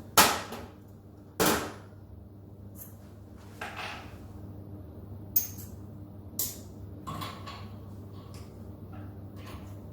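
Metal clanks and clinks of spanners and tooling as the end mill in a CNC router spindle is changed, with one loud clank just after the start and several lighter knocks over the next seven seconds, all over a steady low hum.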